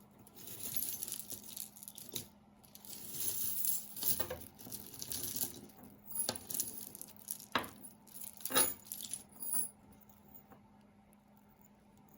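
Costume jewelry clinking and jingling as pieces are rummaged through and moved about in a box: irregular bursts of metal and bead rattles with a few sharp clicks, stopping near the end.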